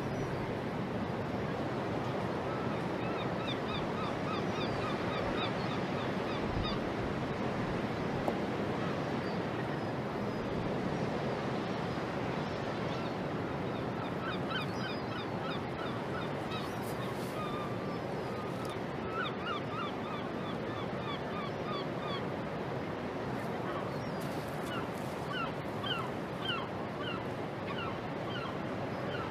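Several runs of short, rapidly repeated honking animal calls over a steady rush of waterfront background noise.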